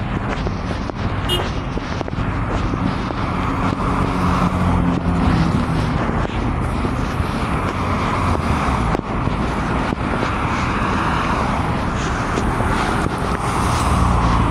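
Street traffic noise: a motor vehicle engine running with a steady low hum over road noise.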